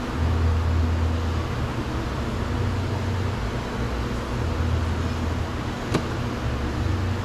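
Steady low mechanical hum with hiss, and one sharp click about six seconds in.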